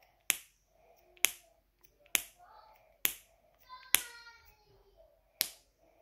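Rainbow silicone snapper fidget toy snapping six times, about once a second with a longer pause before the last: each squeeze pops a suction-cup dome, giving a sharp click.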